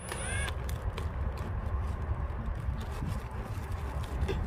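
Faint rustling and scraping as the plastic greenhouse band and weed mat are handled and held in place, over a steady low rumble, with a brief high squeak right at the start. The impact driver is not running yet.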